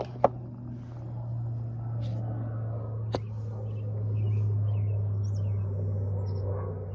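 Steady low hum with two sharp clicks, one just after the start and one about three seconds in, and faint bird chirps scattered through.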